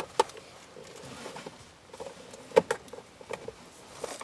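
Plastic interior trim panel being worked loose from its clips and push pins: a series of sharp clicks and light plastic knocks, the sharpest right at the start and a pair more over two seconds in.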